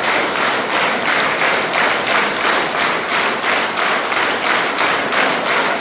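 Large audience clapping together in a steady rhythm.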